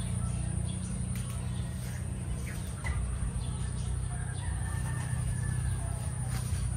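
Chickens clucking now and then over a steady low rumble.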